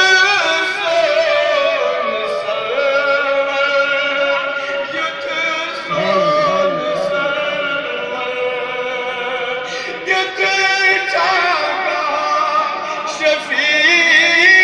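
Men singing a melodic chant with long held, wavering notes.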